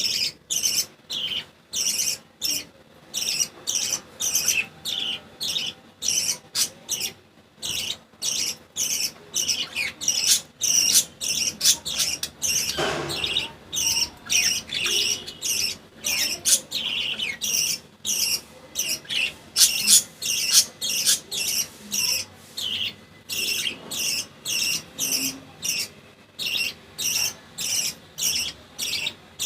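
Budgerigar chick begging while being fed: short high-pitched chirps repeated steadily, about two to three a second, with a brief rustle about halfway through.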